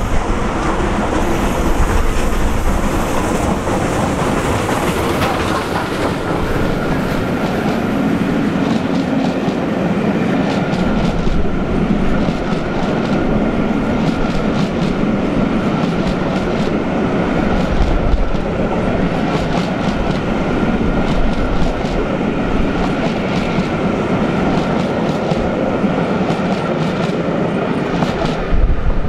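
SR Bulleid 'Merchant Navy' class steam locomotive 35018 running past, followed by its train of Pullman coaches rattling over the rail joints in a steady clickety-clack. A thin high wheel squeal joins in over the second half.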